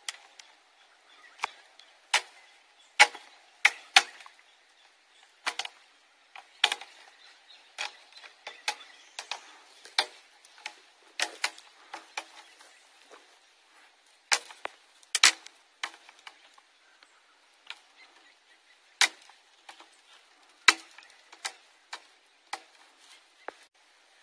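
Irregular sharp clicks and knocks, roughly one a second, some louder than others, with little sound between them.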